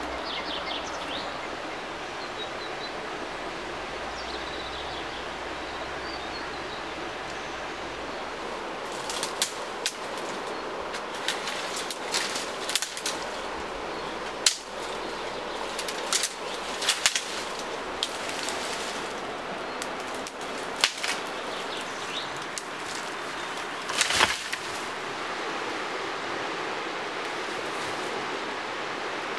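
Dry dead branches cracking and snapping as brushwood is broken and gathered: a string of sharp cracks through the middle, the loudest about three quarters of the way in. Under it a steady rush of river water, with a few faint bird chirps near the start.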